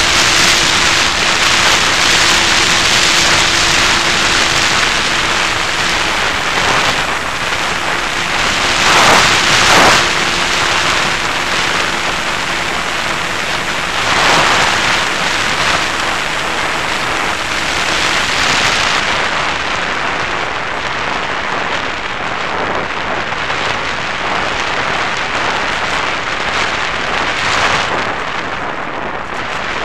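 Airflow rushing over the onboard camera of a Raptor model plane in flight: a dense, rain-like hiss that swells briefly a few times as the plane manoeuvres. A faint steady hum runs under it until about 18 seconds in. After that the rush turns duller.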